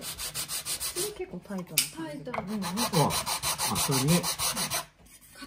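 A small wooden card-case part rubbed back and forth by hand on a sheet of sandpaper laid flat on the bench. The rasping strokes are quick and even, several a second, and stop near the end.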